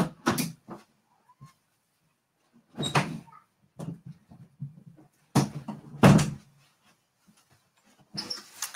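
A door being opened and shut, with a few separate knocks and bumps, the loudest about six seconds in, as someone leaves the room and comes back.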